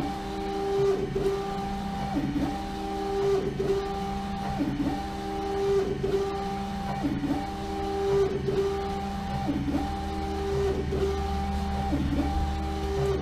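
LogoJet UVx60XL UV printer running a print job: the print-head carriage motor whines steadily as it sweeps back and forth, the pitch dipping briefly at each reversal, about once every 1.2 seconds. It is laying down the primer coat onto a bottle turning in the rotary jig.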